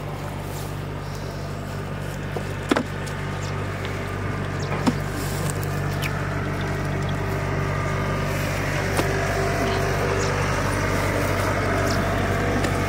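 A small engine running steadily with a low, even hum that grows a little louder. Two sharp clicks sound about 3 and 5 seconds in.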